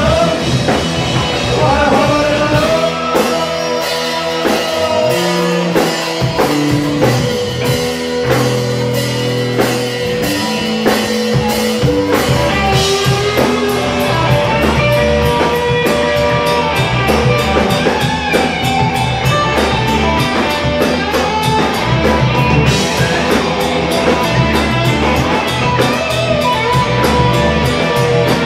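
Live rock band playing: electric guitars and a drum kit with dense cymbal and drum hits, and a singer's voice on top.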